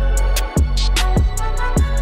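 Background music with a steady beat: a deep kick drum about every half second or so, bright hi-hat ticks and a sustained bass line.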